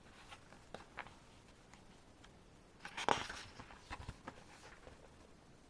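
Paper rustling and light handling taps as a page of a CD album's photobook is turned, with the loudest rustle about three seconds in.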